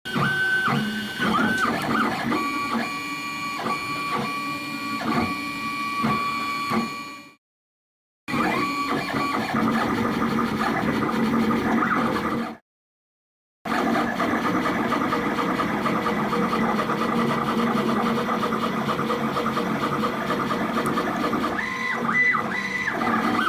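3D printer running, its stepper motors whirring in steady pitched tones that jump from one pitch to another as the axes move. The sound comes in three separate takes with two short breaks of silence between them.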